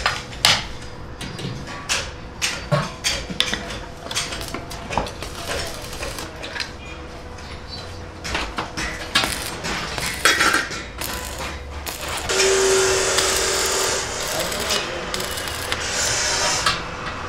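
Metal clanking and tapping as a steel ring is set onto a tandoor's burner plate. About twelve seconds in, a stick (arc) welder starts with a steady crackling hiss as the ring is welded on.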